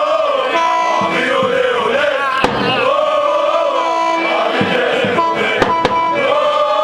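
Crowd of football supporters chanting in unison, a repeating sung phrase about every three seconds with some held notes. A sharp bang about two and a half seconds in and two more close together near the end.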